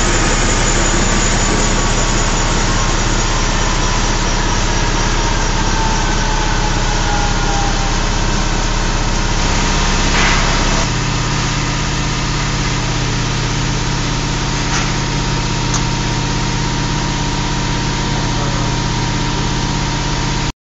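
Atelier François CE46 40-bar compressor system running: a steady, loud mechanical hum, with a faint whine falling slowly in pitch over the first several seconds. The hum shifts to a different low tone about halfway through.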